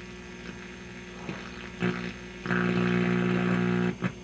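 GE 212 tube radio's speaker giving out a steady hum on the AM band instead of a station, the AM fault still there after a replacement 19T8 tube. The hum is faint at first and becomes much louder about two and a half seconds in, with a few clicks before that and a brief dropout near the end.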